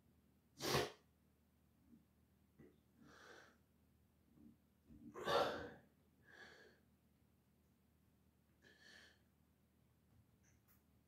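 A man's short, heavy breaths, five in all: loud ones about a second in and about five seconds in, fainter ones between and near the end.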